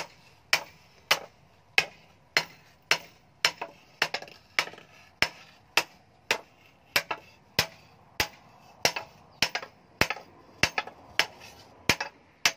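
Hand hammer striking a steel spade blade laid on a steel-post anvil, in steady blows about two a second, each with a short metallic ring.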